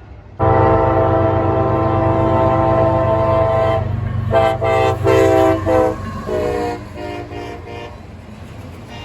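Diesel freight locomotive's multi-note air horn, CSX 114 leading a double-stack train, starting suddenly with one long chord over the engine's rumble. It then sounds a quick string of short blasts and a last weaker set, fading as the train goes by.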